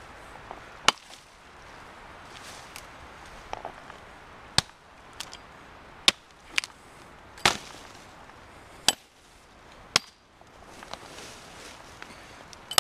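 Cold Steel Axe Gang hatchet chopping into a fallen branch: a series of sharp, separate chops at irregular intervals.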